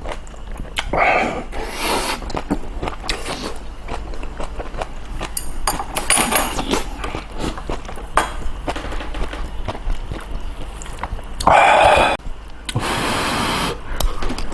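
Close-miked eating of kimchi stew and rice: chewing and wet mouth sounds with small clicks, and a louder burst of eating noise about twelve seconds in.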